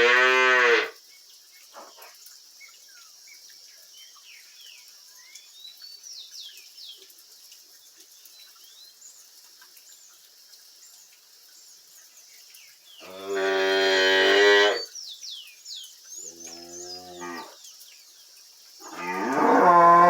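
Cows mooing: a long low call fading out in the first second, another long moo about 13 seconds in, a shorter one just after, and a fourth starting near the end.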